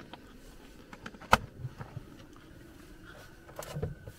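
Handling sounds at a camping kitchen and fridge: one sharp click about a second and a half in, then a few softer knocks and clicks near the end.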